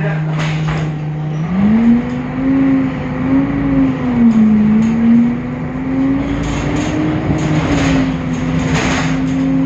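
Temsa Avenue LF city bus's DAF diesel engine running, its pitch jumping up about a second and a half in as it speeds up, wavering with the throttle, then settling a little lower near the end. This bus's engine has a deeper sound than other Temsa Avenue LFs.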